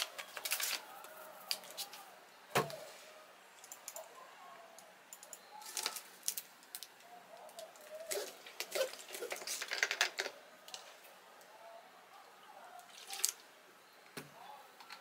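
Scattered sharp clicks and crinkles of plastic being handled, a clear plastic container and then a plastic drink bottle, with some liquid sounds of the bottled drink.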